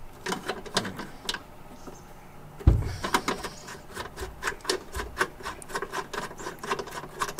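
Hand riv-nut tool setting an M6 threaded insert into the engine-bay sheet metal: a few light clicks, a dull thump about two and a half seconds in, then a steady run of small metallic clicks about two or three a second as the tool is worked.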